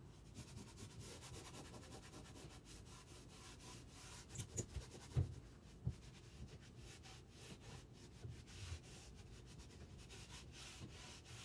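Faint rubbing of a cloth rag over a chalk-painted wooden dresser, wiping away the paint that sat on Vaseline so it chips off. A few light knocks come about halfway through.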